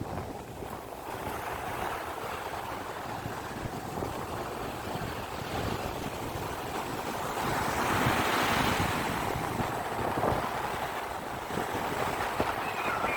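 Sea waves breaking and washing up the beach, a steady rush that swells louder about eight seconds in, with wind buffeting the microphone.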